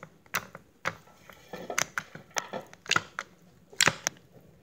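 Glossy slime being poked and squeezed by hand in a plastic container, giving an irregular string of sharp clicks and little pops.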